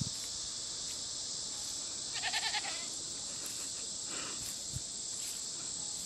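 Goat bleating after its departing keeper: one loud, wavering bleat about two seconds in, then a fainter, shorter call about two seconds later, over a steady high hiss.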